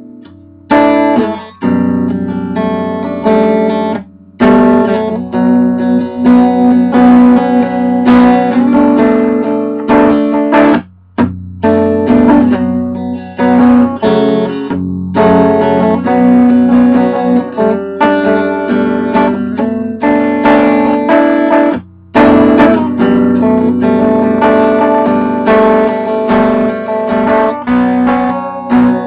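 Guitar played live, improvised chords and notes strummed and picked, with short breaks about 4, 11 and 22 seconds in.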